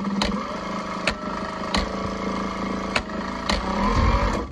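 JUKI DLN-9010A-SH industrial needle-feed lockstitch sewing machine stitching through denim: a steady motor hum with sharp clicks now and then.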